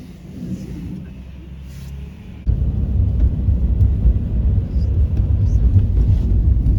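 Low rumble of a car on the move, which turns abruptly much louder about two and a half seconds in.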